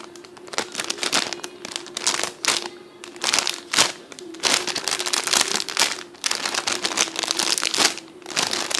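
Crinkling and rustling in repeated short bursts as squishy toys and their wrapping are handled.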